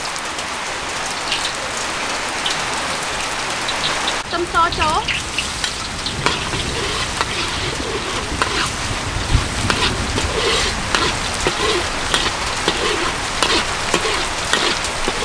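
Food frying in hot oil in a large wok, a steady rain-like sizzle that gets fuller about four seconds in, stirred with a metal spatula.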